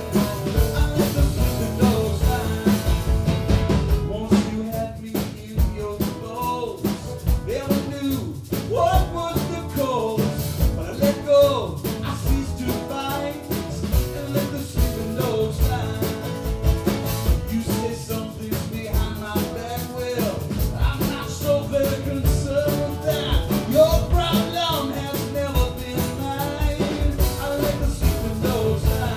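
Live band music: two acoustic guitars strummed and picked while a drum kit keeps the beat and a man sings lead into the microphone.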